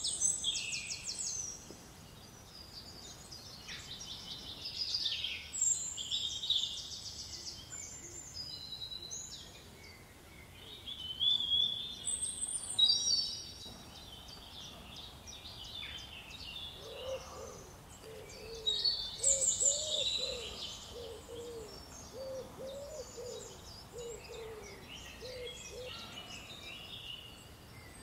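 Garden songbirds singing in bursts of high, fast, twittering phrases. Through the second half there is a run of short, low cooing or hooting notes.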